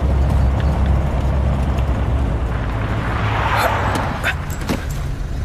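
Truck engine running with a low rumble that eases off about three seconds in as the truck slows to a stop, with a brief hiss as it pulls up.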